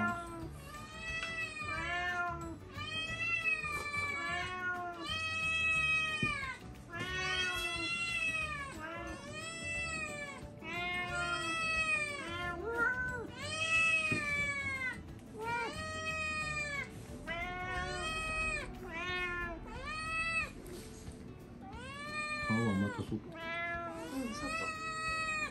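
Domestic cats meowing over and over, one drawn-out, rising-then-falling meow after another about once a second, at various pitches: cats begging for food.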